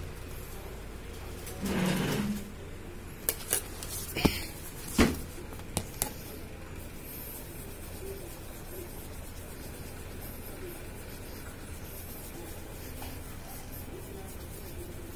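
Hands handling a clear plastic piece on a tiled surface: a brief rustle, then a run of sharp clicks and taps of the plastic, then a low steady hum while a fingertip rubs polish onto the scratched plastic.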